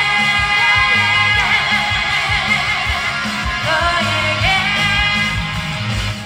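A female singer holds a long sustained note that wavers in pitch, ending a rock song's chorus over a backing track with a steady drum beat and electric guitar.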